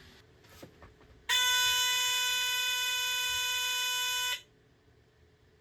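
BRK 769AC/DC smoke detector's alarm horn sounding one steady, unbroken tone for about three seconds, starting a little over a second in and cutting off sharply. At roughly 10 feet it measures about 86 decibels.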